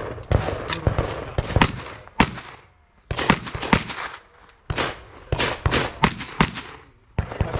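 Sig MCX Spear rifle fired in a rapid string of shots, in quick pairs and short groups with brief pauses between them, each shot sharp with a short echo.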